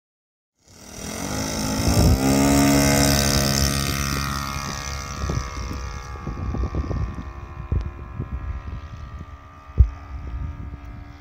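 Saito FG-21 single-cylinder four-stroke gasoline engine on a Tiger 60 model airplane running at full throttle for takeoff, its drone rising in pitch about two seconds in, then fading steadily as the plane climbs away. Wind buffets the microphone from about five seconds on, with one sharp low thump near the end.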